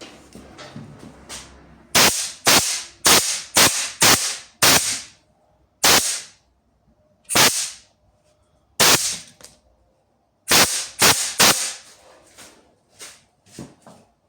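A series of about a dozen short, sharp bursts of noise, each fading within half a second, in uneven groups, with a few fainter ones near the end.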